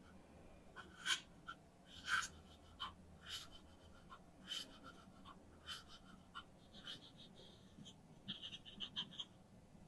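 Miniature kitchen knife chopping vegetables on a small wooden cutting board: light, separate taps of the blade about once a second, then a quick run of taps about eight seconds in.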